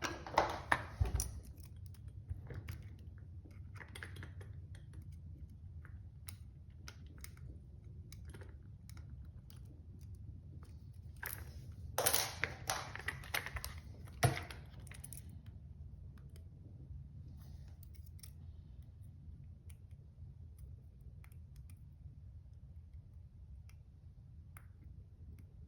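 Lock picks working in a 60 mm padlock: scattered small metallic clicks and scrapes of pins and tools, with a louder burst of clattering about halfway through and a sharp knock shortly after.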